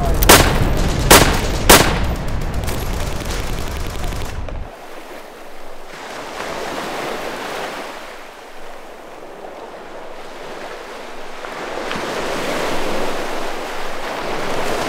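Three rifle shots in the first two seconds over a dense low rumble that cuts off suddenly about four and a half seconds in. Then waves breaking on the shore, rising and falling.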